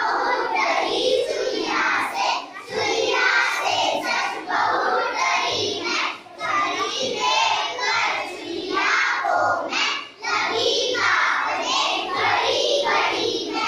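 A class of young children singing a Hindi nursery rhyme together, with brief breaks between lines every few seconds.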